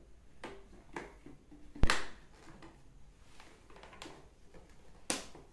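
Hard PVC pipe fittings of a drip-irrigation venturi assembly being handled and pushed together, giving a few sharp plastic clicks and knocks. The loudest comes about two seconds in and another near the end.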